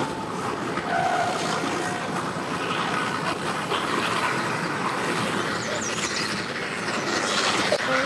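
Steady mechanical rumble and rushing of boat motors on the water, without distinct pitch changes.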